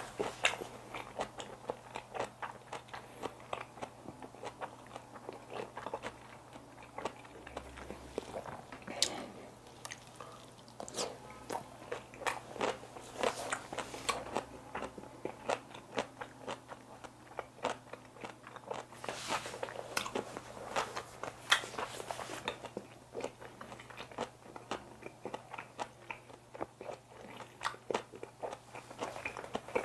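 Close-up chewing of a mouthful of kimchi wrap: an irregular run of crunches and small sharp mouth clicks.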